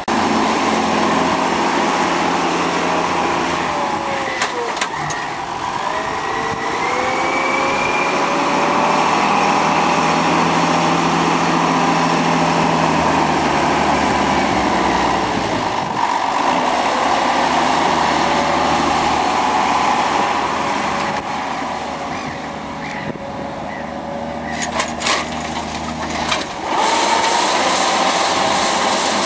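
John Deere tractor engine running steadily under load while pulling a power harrow and pneumatic seed drill through ploughed soil, its note dipping and rising again several times. A few sharp knocks come near the end.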